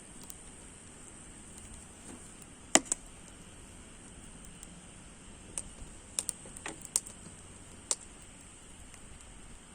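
Firewood burning in a stainless-steel shichirin, crackling with scattered sharp pops, the loudest a little under three seconds in, over a faint steady hiss.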